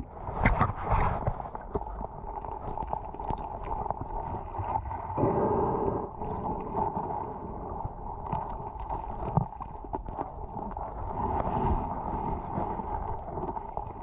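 Muffled underwater noise picked up by a submerged camera: a constant low rumble and wash of water with a steady hum, scattered small clicks and knocks, and louder swells about five and eleven seconds in as a gloved hand works the sandy bottom.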